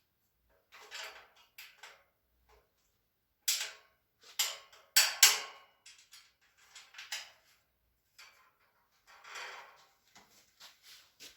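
Irregular taps, clicks and short scrapes of metal shelving parts and bolts being handled and fitted by hand, the loudest knocks about halfway through.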